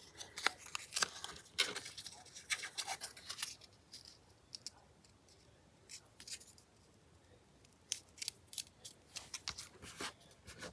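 Scissors cutting paper: short, sharp snips in quick runs, pausing for a few seconds in the middle before starting again.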